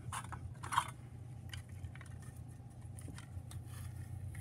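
A few light clicks and knocks, the clearest about three-quarters of a second in, over a steady low hum.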